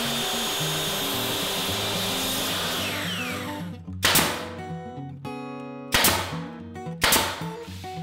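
Miter saw cutting MDF trim molding, its motor whine falling away as the blade spins down about three seconds in. Then a brad nailer fires three times, sharp loud cracks about four, six and seven seconds in. Background music with a steady bass line plays underneath.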